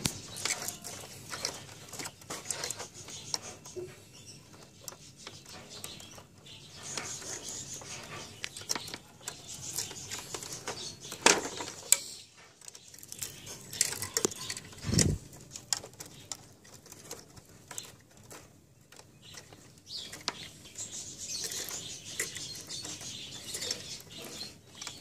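Scattered clicks, taps and rustles of hands handling a printer's metal chassis, plastic parts and wiring, with a couple of louder knocks in the middle.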